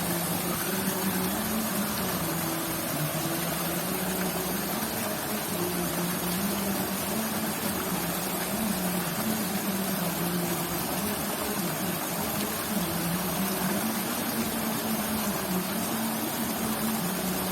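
A steady low motor hum, its pitch wavering slightly up and down, over a constant hiss.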